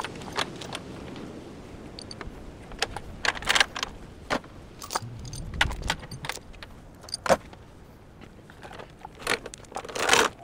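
Steel chains clinking and rattling in irregular bursts of sharp metallic clicks as they are handled and hooked to a crane scale.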